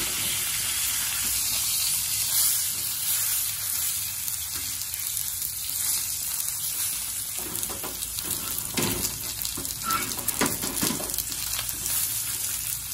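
Dried snakeskin gourami frying in hot oil in a steel wok, with a steady sizzle. In the second half there are short knocks and scrapes as the pieces are turned with wooden chopsticks.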